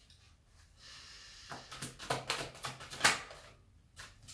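A soft breath, then a run of light clicks and taps as tarot cards are slid off the deck and laid on a wooden table, the sharpest about three seconds in.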